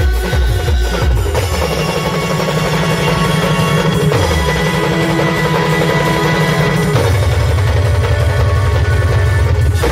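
Loud band music played through a large speaker rig: deep held bass notes that step to a new pitch every few seconds, over drums.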